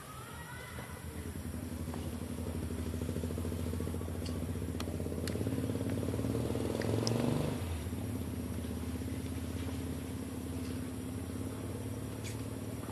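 A steady low engine hum that swells briefly about seven seconds in, with a few faint sharp clicks over it.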